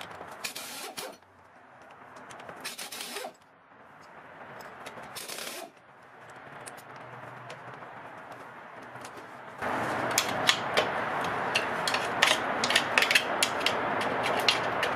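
Hand ratchet working loose the bolts that hold a rear hub to the beam: three short bursts of pawl clicking in the first few seconds. From about ten seconds in comes a louder stretch of rapid metallic clicks and scraping.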